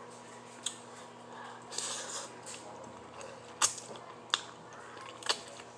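Close-up eating sounds from a bowl of spicy fire noodles: a few sharp clicks and a short airy sound about two seconds in.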